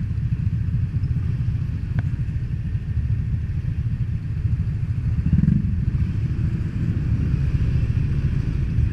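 Motor scooter engines idling, a steady low rumble, with a brief swell about five and a half seconds in.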